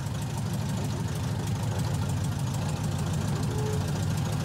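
A Lada Zhiguli's engine idling steadily, a low rumble with a fast, even ticking clatter over it.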